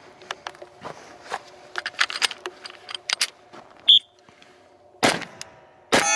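Glock 10mm pistol firing two shots about a second apart, preceded by a short high beep. The second shot is followed by a ringing tone that fades over about two seconds, as from a steel target being hit. Light clicks and knocks come before.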